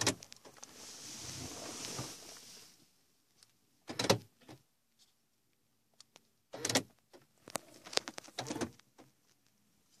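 Mini Cooper's central door locks clunking several times as the buttons of a newly programmed remote key are pressed to test it, with a hiss lasting about two seconds early on between the first clunks.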